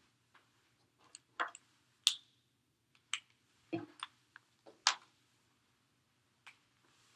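Whiteboard markers handled at the board's tray: about eight scattered short clicks and taps, with one duller knock near the middle, over a faint steady room hum.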